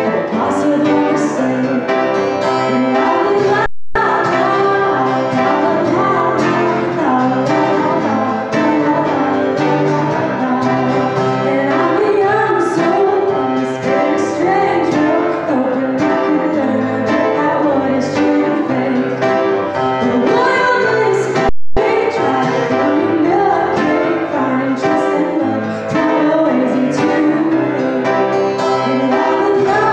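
A woman singing with grand piano and acoustic guitar accompaniment, performed live. The sound cuts out for a split second twice.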